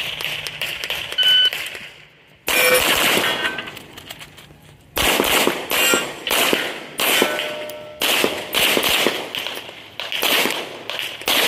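Pistol fired rapidly in fast strings of shots during a timed IPSC stage run, with short breaks between strings.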